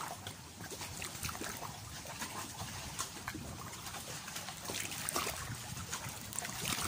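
Shallow seawater washing over rocks and sand at the water's edge, with small irregular splashes and trickles.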